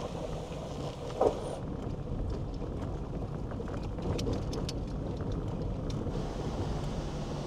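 Jeep Wrangler JL Rubicon driving on a gravel trail, heard from inside the cab: a steady low engine drone and road noise, with scattered clicks and rattles. The first second and a half is from outside, where a Jeep Gladiator crawls over a rocky washout; one short, loud sound comes about a second in.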